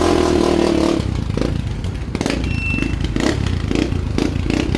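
Kawasaki Barako II motorcycle's single-cylinder engine running at a steady idle with no throttle, after its hard-starting fault has been fixed.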